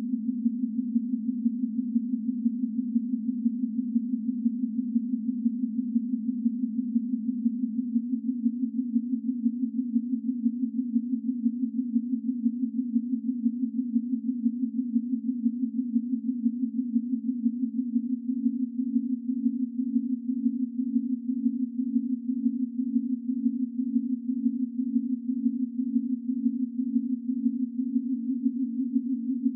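Ten sine tones at consecutive prime-number frequencies, between about 200 and 300 Hz, sounding together as a steady hum that pulses quickly and evenly as the tones beat against each other. The set steps up in pitch about eight seconds in, as the lowest prime is dropped and the next is added, and again near the end.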